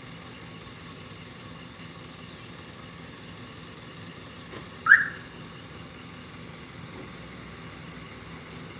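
Steady outdoor street ambience, broken once about five seconds in by a single short, loud, high chirp.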